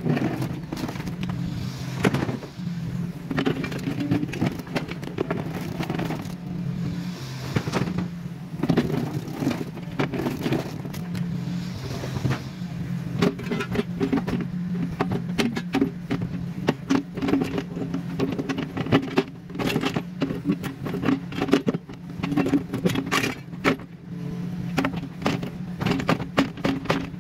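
Kubota mini excavator's diesel engine running steadily under load, with frequent sharp knocks, clinks and scrapes as it breaks up concrete. The knocks come more thickly in the second half.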